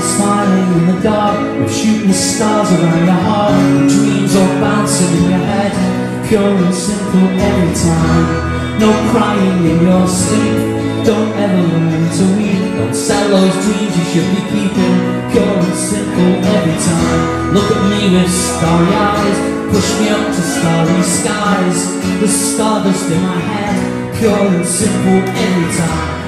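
Live band playing a song: a strummed acoustic guitar with an electric guitar over a steady beat, amplified through the stage speakers.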